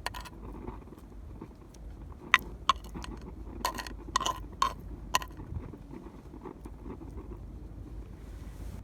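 Several sharp clicks and knocks, clustered in the first half, over a steady low rumble.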